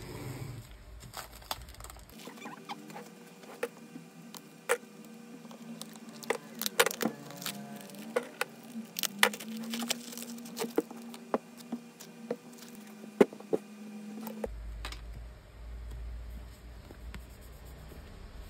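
Thin clear plastic bag crinkling and crackling as hands handle it around a stack of paper memo pads, with many sharp crackles that are densest in the middle, the loudest crack about thirteen seconds in.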